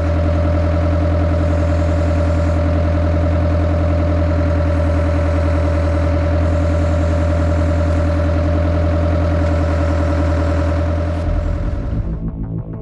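Diesel engine of a Morooka tracked forwarder running steadily with a strong low hum. It changes and fades near the end.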